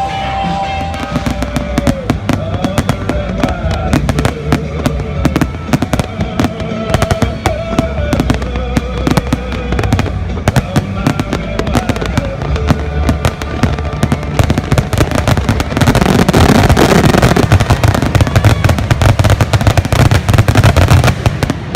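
Fireworks bursting and crackling in rapid succession over music. About sixteen seconds in, the bursts become much denser and louder.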